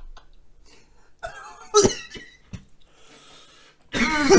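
A man coughing: a short cough about two seconds in and a longer, louder cough near the end.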